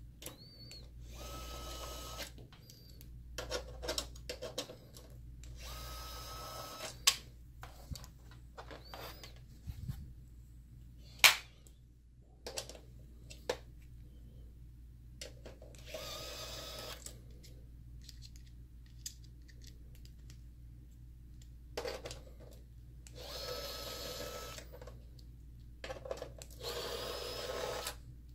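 Small electric screwdriver with a 5 mm hex bit whirring in several short bursts of about a second each as it backs out the hex standoff screws beside the projector's rear connectors. Sharp clicks and taps of metal parts fall between the bursts.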